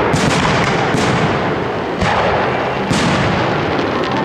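Aerial firework shells bursting one after another, sharp booms about once a second with echo filling the gaps between them.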